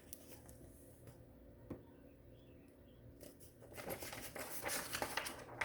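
Faint rustling and crinkling handling noise, soft and unpitched, over quiet room tone. A single faint click comes about a second and a half in, and the rustling starts about three seconds in and lasts a couple of seconds.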